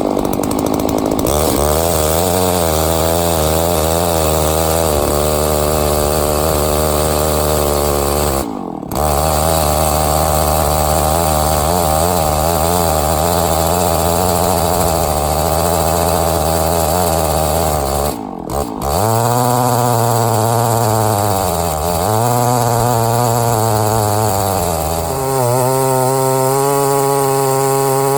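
Stihl MS660 90cc two-stroke chainsaw running hard under load as its 64-inch lo pro milling bar rips a slab lengthwise through a log. The engine note wavers as the cut bogs and recovers, with two brief breaks. Near the end the pitch rises and steadies.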